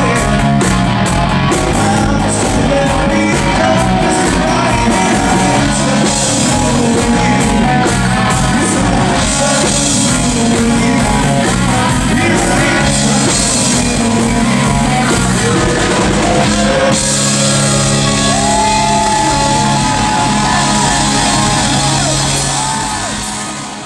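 Live rock band playing: a male lead singer with electric guitars, bass and drum kit. Near the end a long held note rings out, then the sound fades away.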